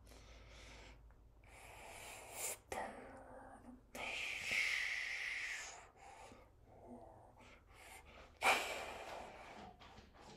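A person's breathy mouth sounds and exhalations, uneven in length: a few short puffs about two seconds in, a long hissing breath about four seconds in, and a sharp puff of breath followed by more hissing about eight seconds in.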